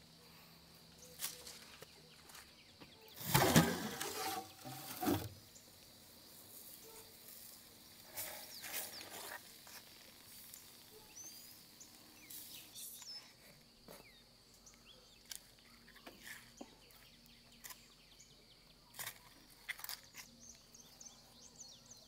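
Outdoor ambience with faint bird calls and a steady high insect hum. A louder clattering, rustling burst comes about three seconds in, with further knocks and clicks scattered through.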